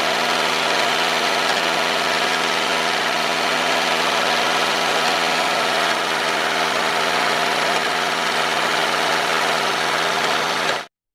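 An engine running steadily at an even speed, then cutting off abruptly just before the end.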